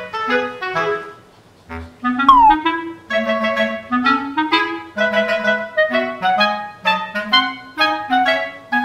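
Background music: a light clarinet melody in short, evenly paced notes. It briefly drops out about a second in, then comes back with a short falling glide.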